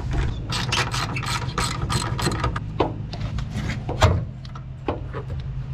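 Ratchet wrench clicking in quick, uneven runs as a fastener near the HICAS lines is worked, over a steady low hum.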